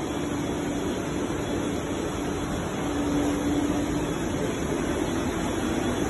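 Steady machine whir with a constant low hum, like a fan or blower running.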